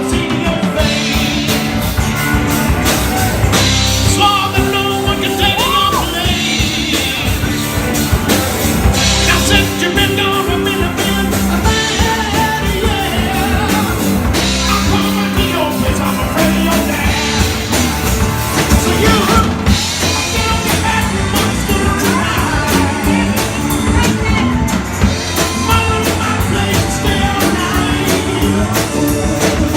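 Rock band playing live: steady drums and amplified instruments, with a voice singing over them.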